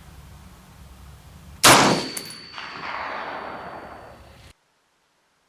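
A single rifle shot from a Springfield M1A firing surplus 7.62x51 NATO ammunition about two seconds in, a sharp crack whose report dies away over a couple of seconds with a faint ringing tone in it. The sound cuts off abruptly near the end.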